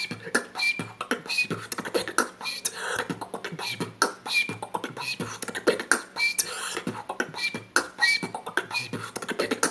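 Beatboxing: a fast rhythm of mouth-made kick and snare clicks with short, high whistles about once a second, the cough whistle, a whistle pushed out with a cough-like burst of air.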